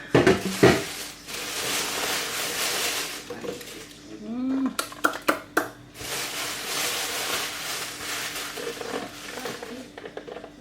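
Takeaway food containers and cutlery being handled: knocks and clatter in the first second, rustling and scraping, and a quick run of sharp clicks about five seconds in.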